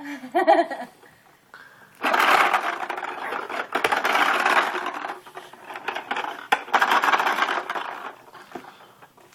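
Toy lawn mower rattling loudly as it is pushed, a dense clicking clatter that starts about two seconds in and runs in three stretches before dying away near the end.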